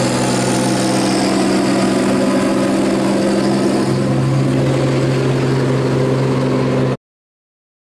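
Heavy truck's diesel engine running at a steady pitch. The sound cuts off abruptly about seven seconds in.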